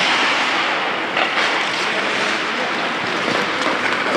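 Ice hockey play on a rink: skate blades scraping and swishing on the ice as a steady hiss, with a couple of light stick or puck clicks about a second in.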